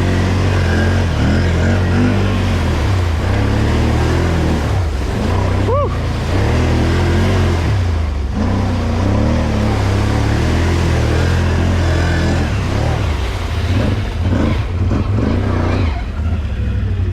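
ATV running steadily as it crawls through mud and water, its low drone mixed with the wet churn of tyres in the mud. A brief high squeak comes about six seconds in.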